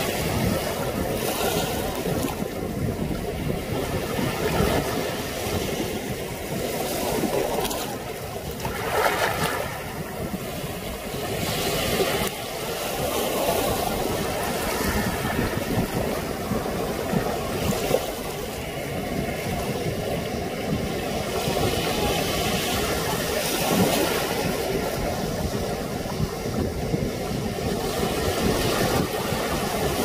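Small waves washing up and draining back over sand and around rocks at the shoreline, a continuous surf wash that swells and eases, with a low wind rumble on the microphone underneath.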